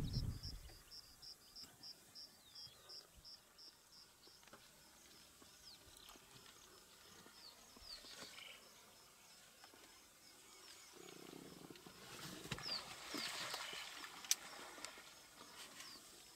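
Quiet wildlife ambience. A low rumble dies away in the first half second. A short high note then repeats about four times a second for the first few seconds, with scattered high chirps after it. Later comes a few seconds of soft rustling.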